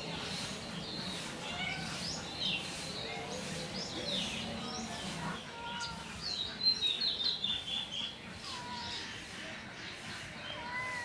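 Small birds chirping: many short, high chirps throughout, with a busier run of chirps about six to seven seconds in.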